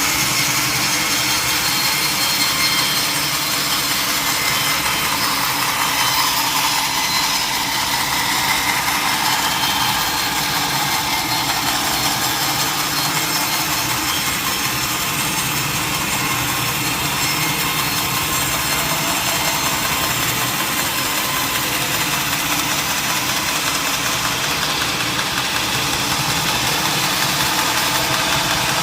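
Sawmill saw running steadily under engine power, cutting through a large mahogany log.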